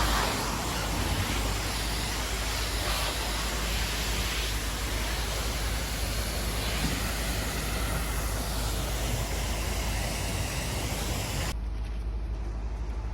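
Steady hiss of a hot-water pressure washer's spray washing down brickwork, over a low rumble. The hiss thins abruptly near the end.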